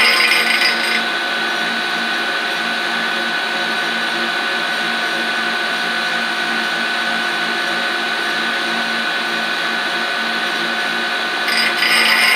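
Rockwell grinder motor spinning a grinding wheel, a steady machine whine with the wheel mostly clear of the end mill between passes. About a second before the end it gets louder and harsher as the wheel comes back onto the cutter.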